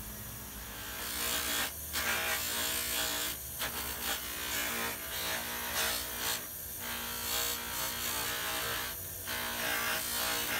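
A small electric power tool runs steadily with a rubbing, grinding noise on metal that drops out briefly several times, as the work is lifted off and put back.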